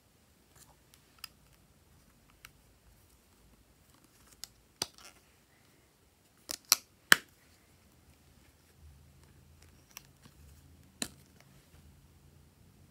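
Scattered sharp plastic clicks from handling a small squeeze tube and flipping its snap cap, loudest in a quick cluster of three a little past halfway. A faint low hum comes in later.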